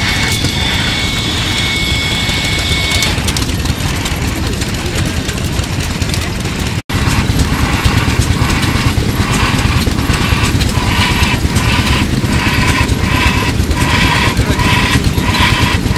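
Houston, Stanwood & Gamble steam engine running with a steady low rumble and hiss of escaping steam; a high steady tone over it cuts off about three seconds in. After a momentary dropout near the middle, the engine's puffs come through as an even beat of about two a second.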